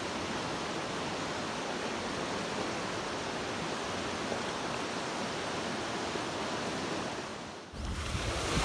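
Fast-flowing river rushing over rapids, a steady even rush of whitewater. It cuts off suddenly near the end, giving way to a low rumble.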